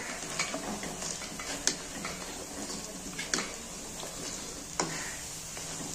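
Moong dal fritters sizzling in hot oil in a kadhai, with a metal slotted spoon clicking against the pan about four times as the fritters are stirred and lifted out.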